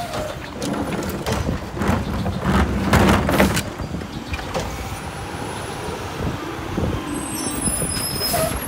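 Diesel engine of a Mack LR garbage truck running as the truck rolls up and stops at the curb, with short hisses from its air brakes, the loudest a little past the middle.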